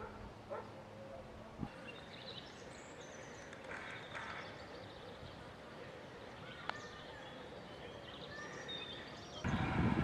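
Faint outdoor background noise with scattered short, high chirps and a few light clicks. About half a second before the end a much louder rough rushing noise starts.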